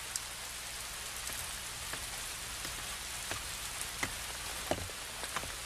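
Steady rain falling, with scattered louder drips landing here and there.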